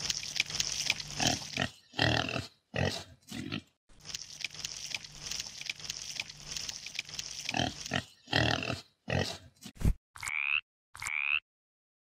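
Wet, squelchy grunting sound effects as eels wriggle through mud, in two long rough stretches, each followed by a few short louder bursts. About ten seconds in, short rising frog-like calls begin, repeating about once a second.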